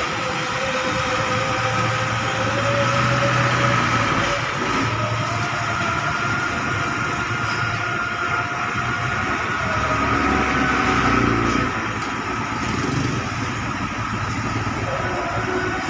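Bus engines running as buses move slowly through a terminal, with a steady high whine above the engine noise and a lower engine tone that rises and falls.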